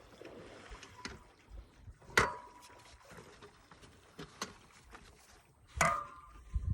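Knocks and clicks from fitting and handling a wheelchair's sand-wheel attachment, with two sharp metallic clanks that ring briefly, about two seconds in and near the end.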